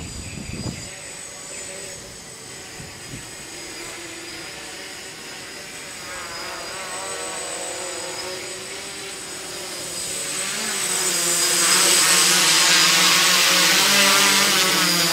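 Quadcopter's electric motors and propellers buzzing in flight, the pitch wavering as it manoeuvres. It gets louder from about ten seconds in as it flies in close.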